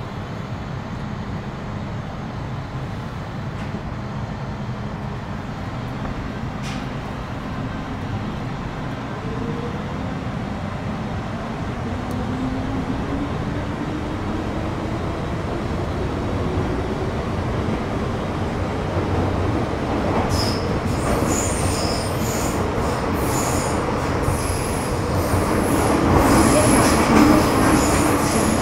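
MTR Metro Cammell M-Train EMU with GEC GTO chopper traction running under way, the motor whine rising in pitch as it gathers speed and the running noise slowly growing louder. From about twenty seconds in, high-pitched wheel squeal with light clicks joins the rumble.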